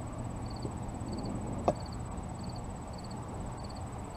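Cricket chirping steadily, each chirp a quick trill repeated about every two-thirds of a second, over a low wind rumble on the microphone. A single sharp tap comes a little before halfway.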